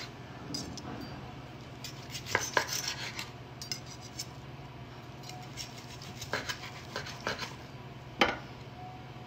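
Kitchen knife and fork cutting cooked chicken on a cutting board: scattered clacks and scrapes of the metal blade and tines against the board, with a cluster of quick strokes a couple of seconds in and the sharpest clack near the end.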